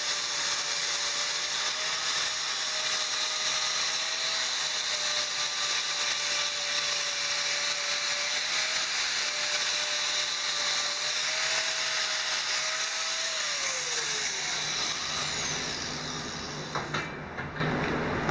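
Angle grinder with an abrasive disc running steadily, grinding a weld bead flush on thin steel tubing: a steady high whine over a hiss of grinding. About two-thirds of the way through the whine falls in pitch as the grinder spins down, and near the end a lower steady hum takes over.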